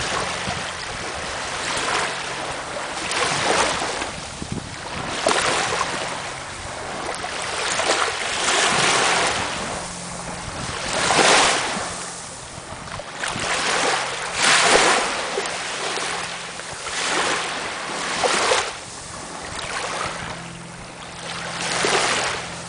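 Small waves lapping at a sandy shoreline, each wash swelling and draining back every couple of seconds, the strongest surge just past the middle.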